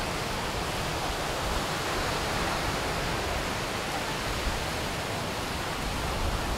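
Surf washing onto the beach: a steady rushing hiss that swells slightly a couple of seconds in.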